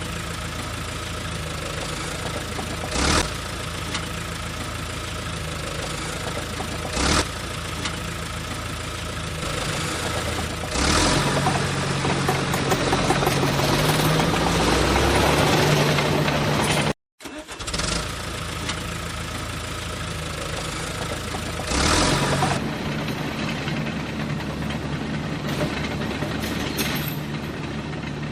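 Engine sound running steadily, with a few short knocks. It grows louder and rises in pitch from about 11 to 16 s, then cuts out for an instant near 17 s and resumes.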